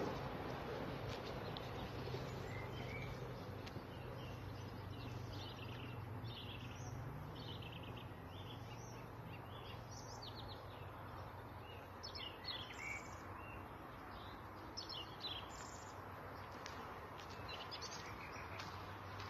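Songbirds chirping and trilling over a soft outdoor hiss, with a low engine hum that fades away about two-thirds of the way through.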